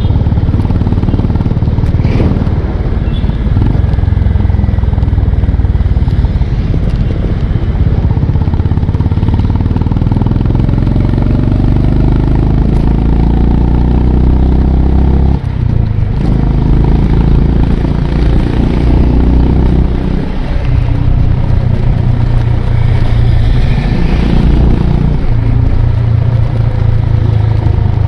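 Honda CB350 RS single-cylinder engine running on the move, its note climbing with the throttle and dipping sharply about halfway through, as at a gear change or throttle closing.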